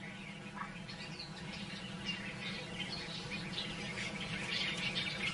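Wild birds chirping, many short scattered calls, over a faint steady low hum of natural ambience.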